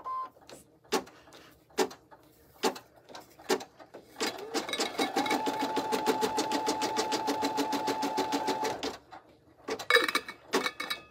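Embroidery machine stitching the last step that finishes the tab. It starts with slow, separate stitches about once a second, then runs at full speed for roughly four seconds with a steady motor whine under rapid needle strokes, then stops. A few sharp knocks come near the end.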